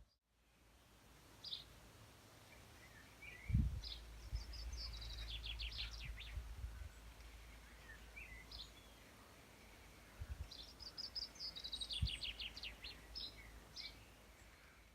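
Birds singing in quiet countryside, with short chirps and trilled phrases in two spells, over a low rumble that starts a few seconds in, with a couple of soft knocks.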